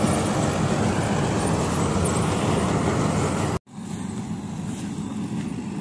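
Jaswant combine harvester running as it cuts paddy: a steady, dense engine and machinery noise. It breaks off suddenly about three and a half seconds in and comes back quieter.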